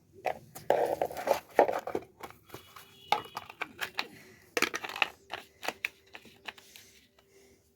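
Kitchen handling sounds as an ingredient is added to the fritter mix: a string of irregular clicks, taps and rustling, busiest in the first couple of seconds and thinning out towards the end.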